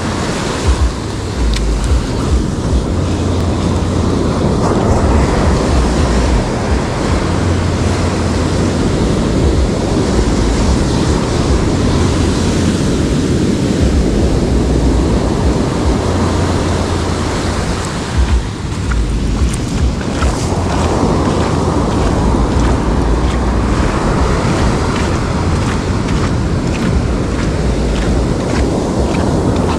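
Surf breaking and washing up a beach, with wind gusting across the microphone in uneven low rumbles.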